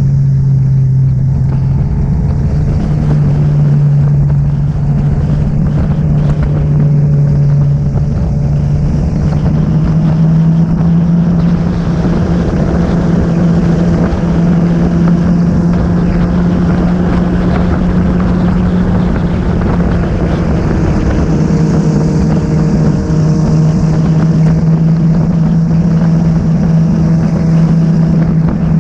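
Motorcycle engine running at a steady highway cruise, a constant drone whose pitch rises slightly about nine seconds in and eases back a little near twenty-one seconds, over wind and road noise.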